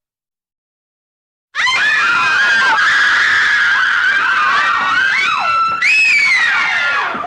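After about a second and a half of silence, several high-pitched voices scream in terror at once, overlapping and wavering up and down. A higher shriek starts near six seconds in.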